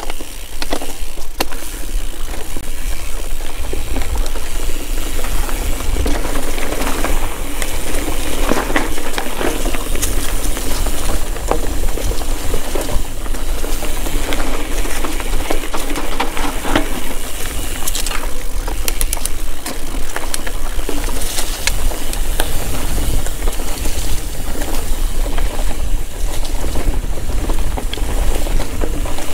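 Mountain bike ridden along a dirt forest single track: a steady low rumble of wind on the camera microphone, under tyre noise and frequent clicks and rattles from the bike going over the ground.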